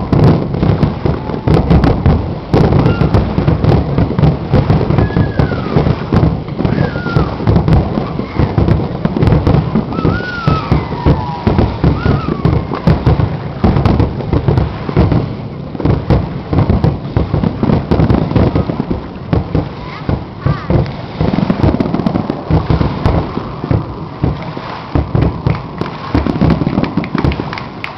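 Aerial fireworks going off in a rapid, continuous barrage of booms and crackles, one burst on top of the next.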